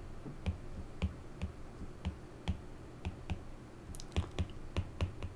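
Stylus tapping and clicking on a tablet screen during handwriting: a string of soft, irregular clicks, about two to three a second.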